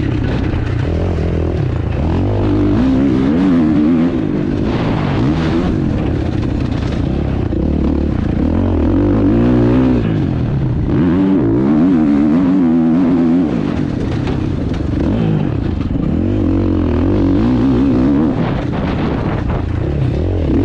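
Husqvarna motocross bike's engine heard on board, revving up and dropping back again and again as the throttle is opened and shut around the track, with short dips when it is shut off.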